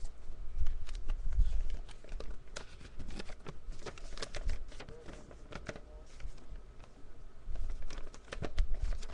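Handling a package by hand: irregular clicks, taps and rustles of packaging, with low bumps now and then near the microphone.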